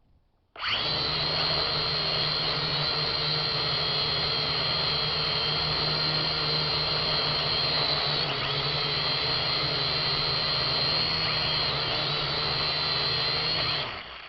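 A Syma X7 quadcopter's four electric motors and propellers spinning up suddenly about half a second in, then running at a steady, high-pitched whine with a low buzz under it, and dying away near the end.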